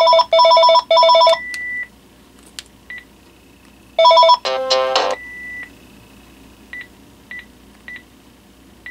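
Panasonic KX-TG6641 cordless handset playing ringer-tone previews. A pulsed, warbling two-pitch ring stops about a second and a half in, and a different ringtone plays for about a second around four seconds in. Short single key beeps come between the rings and several more follow.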